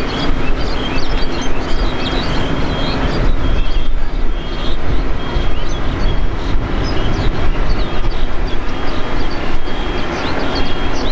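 Boeing 747 freighter's jet engines giving a loud, steady rumble as the jet rolls down the runway after landing, with high chirps over the top.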